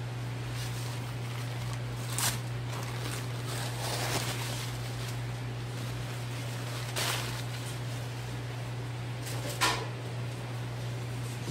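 Handling of a large sea bass half as it is unwrapped from a kitchen towel and laid on a cutting board: a few short rustles and soft knocks, the loudest near the end, over a steady low hum.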